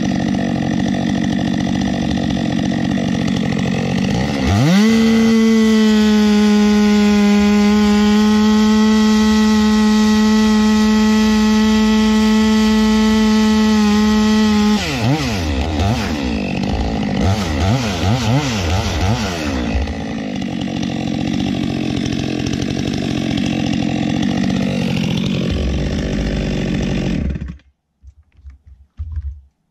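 Stihl MS462 two-stroke chainsaw running and cutting white pine. About four seconds in it revs up to a steady high pitch and holds it for about ten seconds, then the pitch drops and rises unevenly before the engine runs on and stops suddenly near the end.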